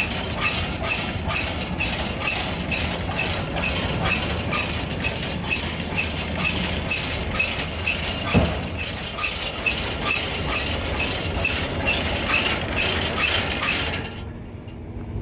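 New Holland baler running, with an even mechanical clacking about twice a second over a steady drive hum, and one sharper knock about halfway. Near the end the clatter cuts off suddenly, leaving a quieter low hum.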